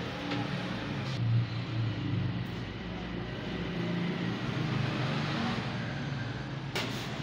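A steady, low, engine-like running hum, with a few sharp clicks near the end.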